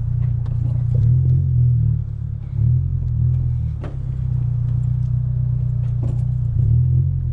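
Honda Civic EK coupe's engine running at low revs, heard from inside the cabin as a steady low rumble that swells slightly a few times while the car creeps along.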